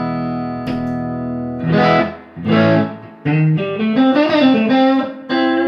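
Electric guitar, a Stratocaster, played through a vibraverb pedal. Chords are struck and left to ring out, then a short run of single notes follows with a slight waver in pitch.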